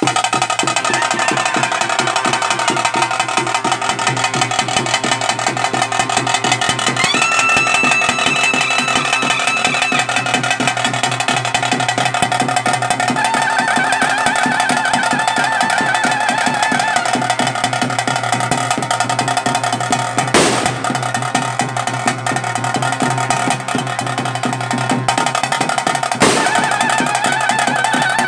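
Ritual band at a Tulu daiva (spirit-worship) ceremony: fast, continuous drumming with rolls under a sustained, wavering melody. Two brief sharp knocks cut through, about two-thirds of the way in and again near the end.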